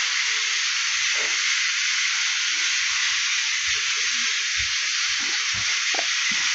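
Food frying in a pan: a steady, even sizzling hiss.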